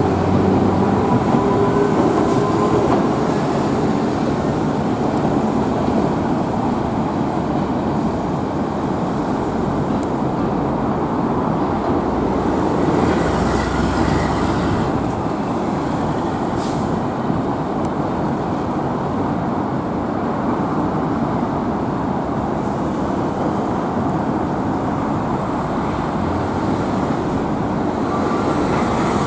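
Streetcar running along its street track: a steady rumble of wheels on rail and motor. A faint high squeal comes about halfway through, with a single sharp click shortly after.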